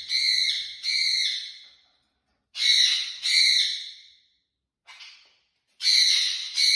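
Pet parrot giving loud, harsh, repeated calls, each about half a second long, in groups of two or three with short pauses between, a faint single call in the middle and a fresh run near the end.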